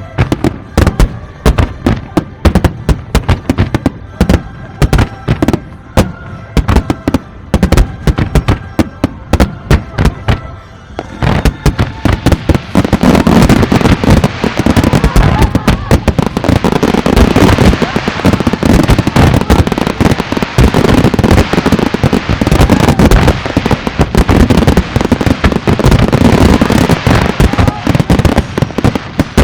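Aerial fireworks bursting: loud separate bangs in quick succession for about the first ten seconds, then, from about twelve seconds in, a dense unbroken barrage of explosions.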